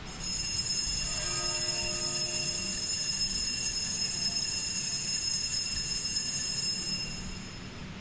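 Altar bells jingling steadily while the chalice is lifted at the consecration, marking the elevation; the ringing fades out near the end.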